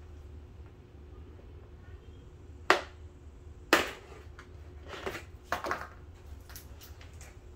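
Sharp clicks and snaps of stiff black plastic lawn edging being bent and worked by hand: two loud snaps about a second apart, then a quick cluster of lighter clicks and ticks. A steady low hum runs underneath.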